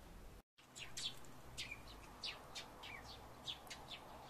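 Wild birds chirping outside: a quick run of about a dozen short, high chirps, each falling in pitch, starting about half a second in.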